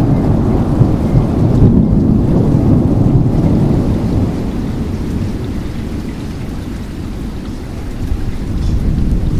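Severe thunderstorm: heavy rain with a continuous low rumble of thunder, loudest at first, easing in the middle and building again near the end.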